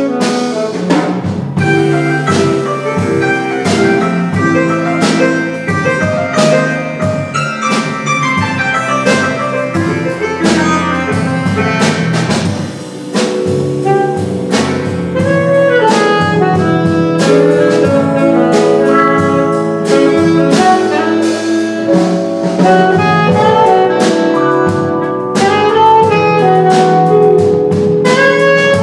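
Instrumental jazz: a saxophone plays the melody over piano chords and a drum kit keeping time.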